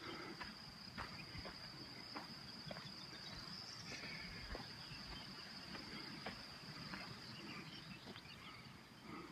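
Faint, steady high-pitched trilling of insects such as crickets, with light irregular footsteps on a dirt path.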